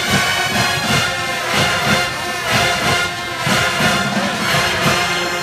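Marching band playing loudly, brass horns over a steady drum beat.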